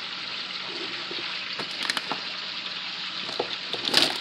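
Chicken frying in vegetable oil, a steady sizzle, with a few light clicks and a loud clatter near the end.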